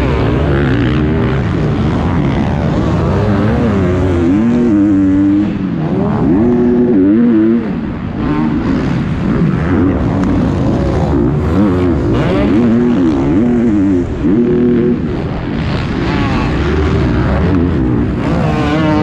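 KTM motocross bike engine revving hard on a supercross track. Its pitch rises and falls over and over with throttle and gear changes, and other dirt bikes can be heard close by.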